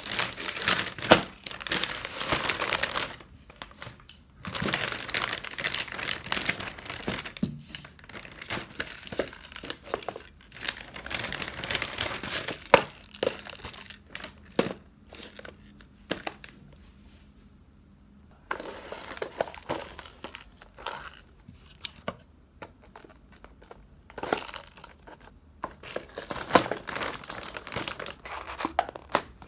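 Plastic multipack bag of instant cup noodles crinkling and rustling as cups are pulled out by hand, with sharp knocks as the cups are set down on a wooden desk. The rustling pauses briefly about two-thirds of the way through.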